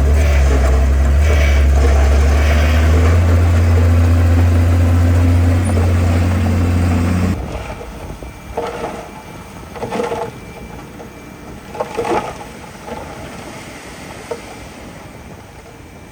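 Heavy diesel earthmoving machine running, a loud steady deep engine drone whose pitch creeps up slightly a few seconds in. About seven seconds in it cuts off abruptly, leaving a much quieter background with a few short irregular noises.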